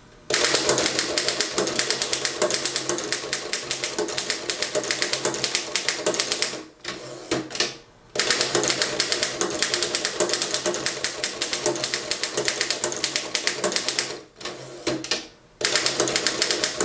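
1924 Underwood No. 3 manual typewriter being typed on fast, in capitals: a rapid run of typebar strikes in three stretches, broken by two short pauses.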